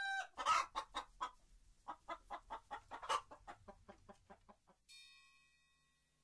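A rooster clucking in a quick run of short clucks, about five a second, louder at first and fading away by about four and a half seconds in.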